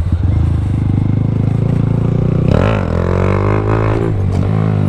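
Small motorcycle engine running with a steady low drone, and a higher engine note rising and falling for a couple of seconds from about halfway in.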